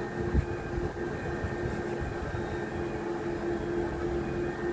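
Heavy construction machinery running steadily: a constant diesel-engine drone with a steady hum and low rumble, and one brief low thump about half a second in.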